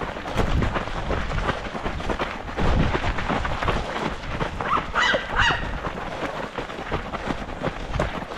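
A runner's footsteps and body-worn camera movement noise. About five seconds in, one brief high call, an animal or distant voice.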